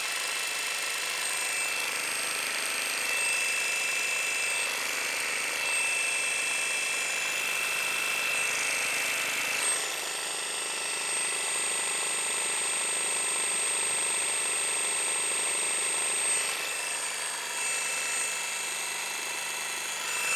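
Milwaukee M18 Fuel barrel-grip cordless jigsaw running free with orbital action on, a steady high whine. The blade is not rubbing or striking the Collins coping foot fitted to it.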